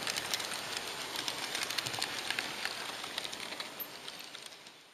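H0-scale model train running along its track: a steady rolling rattle thick with quick irregular clicks from the wheels on the rails, fading out about four seconds in.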